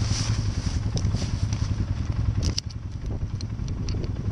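Quad (ATV) engine running steadily as it is ridden off-road, a low drone with rattling and clatter from the ride over it; it dips briefly a little past halfway through.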